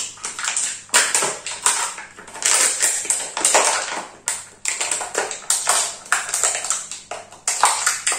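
Scissors snipping into a thin plastic bottle, the plastic crackling with each cut, in a run of sharp irregular snips about one or two a second.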